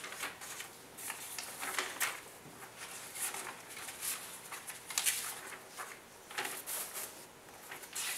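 Sheets of paper rustling and crinkling as they are handled and passed out, in short irregular swishes.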